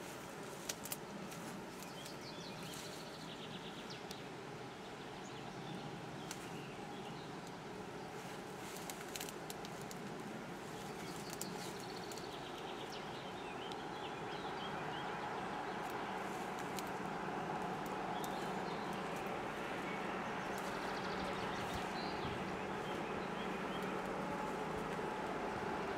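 DB class 225 diesel-hydraulic locomotive hauling a gravel train, approaching under power: its engine hum grows louder from about halfway through. Birds chirp now and then.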